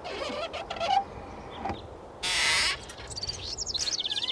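Layered soundscape of bird and animal calls: chattering calls, a loud half-second burst of noise a little over two seconds in, then a rapid high trill of quickly repeated notes near the end.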